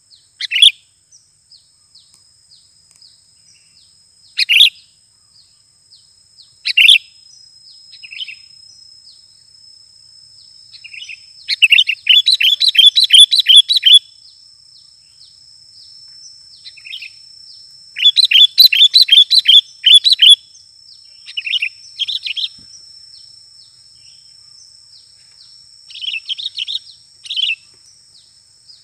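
Sooty-headed bulbuls calling: single sharp chirps every couple of seconds at first, then two long bursts of rapid chattering about twelve and eighteen seconds in, and a few shorter phrases near the end.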